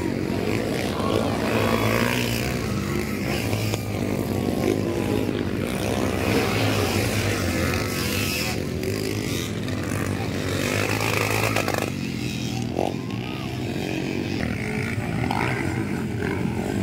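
Motocross dirt bikes running on a dirt track: a continuous engine drone whose pitch rises and falls as the riders work the throttle.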